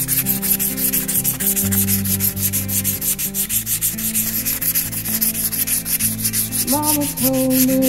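Rapid back-and-forth hand sanding, a scratchy rasp at several strokes a second, over background music with a sung note near the end.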